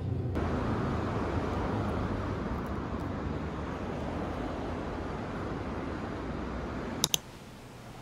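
Steady outdoor street noise, an even rushing background with a low traffic hum. About seven seconds in, two sharp clicks come close together and the background drops to much quieter.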